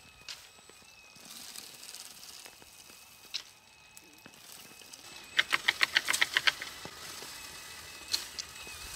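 Electric pole-mounted olive harvester working in an olive tree: a faint steady whine, and about halfway through a quick run of sharp clattering clicks, about ten a second, for just over a second, as its tines beat through the branches.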